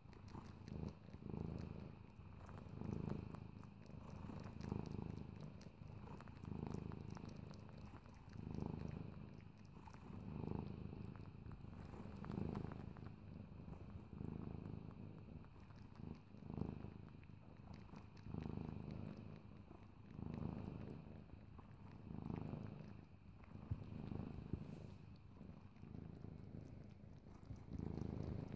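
Cat purring continuously, the purr swelling and fading with each breath, about one swell every two seconds.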